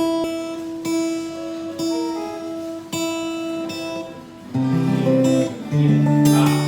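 Freshly restrung Cowboy GWC 240 NAS acoustic guitar being tuned. A single string rings on for about four seconds while a few other notes are plucked over it. Then, about four and a half seconds in, chords are strummed.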